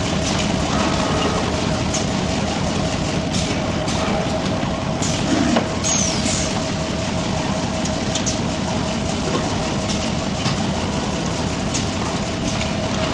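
High-speed vest-bag (T-shirt bag) cutting machine running: a steady mechanical whir with a constant hum and occasional light clicks, plus a brief squeak a little over five seconds in.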